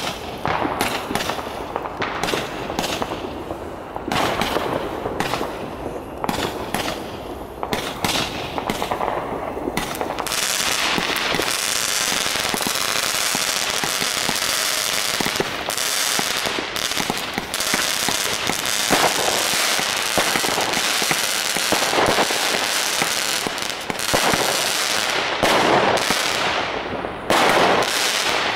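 WECO Stardust compound firework (consumer cake) firing. For about the first ten seconds it is separate shots and bursts with short gaps. Then comes a dense, unbroken crackle and hiss of many effects at once, with loud distinct bangs again near the end.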